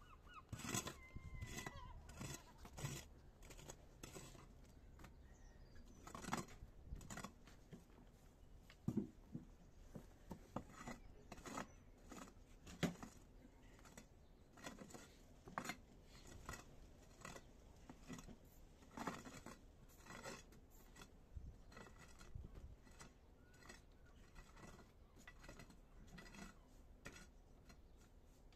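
Faint, irregular scrapes and knocks of a hand tool digging out soil along the edge of a garden bed.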